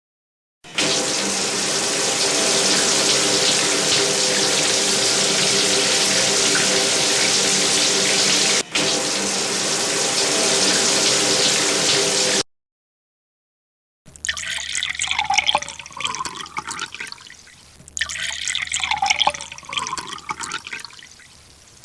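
Water running in a steady, hissing stream for about twelve seconds, with a momentary break partway through. After a pause, water is poured twice, each pour gurgling loudly at first and then tailing off.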